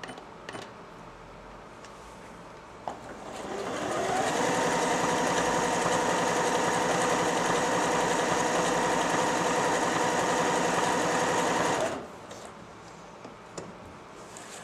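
Janome Jem Platinum 760 sewing machine sewing an overcasting stitch. A click comes about three seconds in, the machine speeds up over about a second, runs steadily at an even speed for about eight seconds, then stops abruptly.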